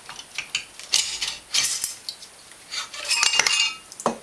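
Metal clinking and scraping as the cylinder of a Honda Foreman 500 Rubicon engine is wiggled loose and lifted off the crankcase. Several sharp clinks, with the busiest stretch and a brief metallic ring about three seconds in.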